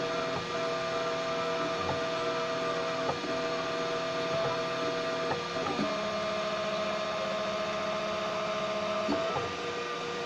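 Homemade 3D printer running as its print head moves over the top of a PLA print: a steady whine of held tones whose pitch jumps every second or two as the moves change, with a longer unbroken stretch a little past the middle.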